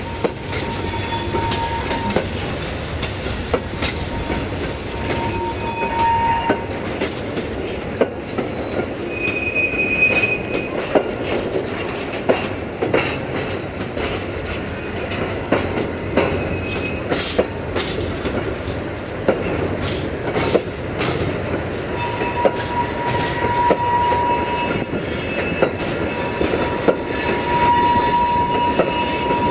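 Freight train of hopper wagons rolling past: a steady rumble of wheels with irregular clacks over rail joints and points. Thin, high wheel squeal comes and goes, through the first few seconds, briefly around ten seconds in, and again in the last third.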